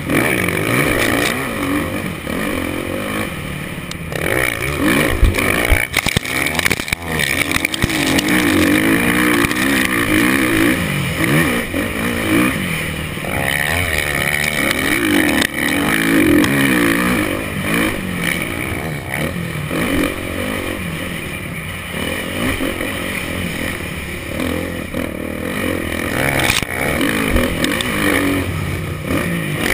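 Motocross bike engine heard from the rider's helmet camera, revving up and dropping back over and over as the rider accelerates, shifts and brakes through the track's corners and climbs.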